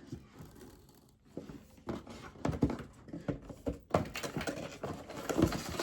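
Unboxing handling: an accessory box and its packaging being opened and moved about, with irregular knocks, taps and rustling starting about a second in.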